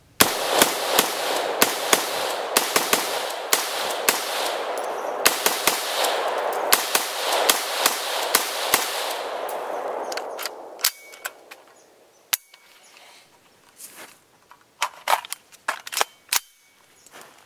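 AR-15 rifle in 5.56 with a muzzle brake fired semi-automatically in a quick string of about twenty shots, roughly two to three a second, each with an echo, for about nine seconds. The firing stops, and scattered metallic clicks and clinks of the rifle being handled follow.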